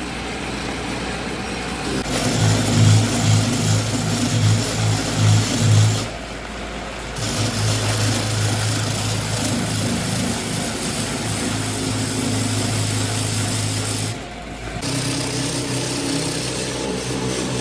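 A motor-driven machine running steadily with a low hum and a bright hiss, pulsing unevenly for the first few seconds. It drops out briefly twice, about six and fourteen seconds in.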